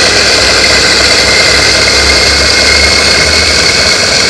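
Electric burr coffee grinder running steadily, grinding espresso beans fine.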